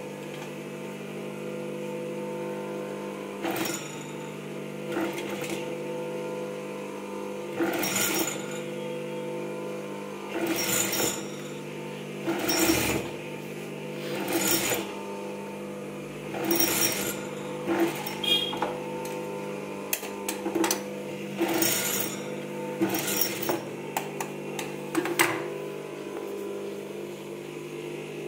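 Industrial lockstitch sewing machine stitching in short runs, about a dozen brief bursts a second or two apart, over a steady motor hum. The stitching sews trim onto a blouse neckline in short stretches.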